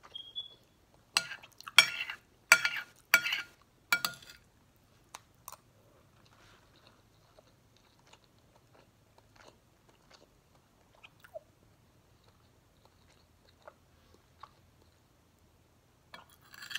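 Close-up chewing of a mouthful of stewed rice and chicken: a run of loud wet mouth sounds about one to four seconds in, then softer, sparse chewing clicks.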